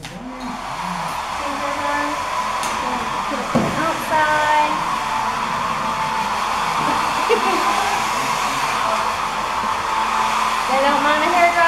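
Hand-held electric hair dryer switching on and blowing steadily.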